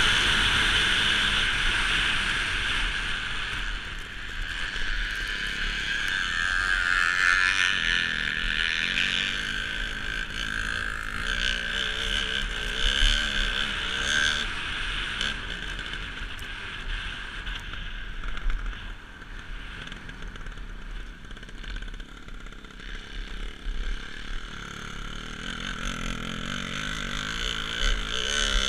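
Dirt-bike engine running ahead at speed, its pitch rising and falling as the rider works the throttle to tow a skier over snow, under a steady hiss of wind and skis on the snow.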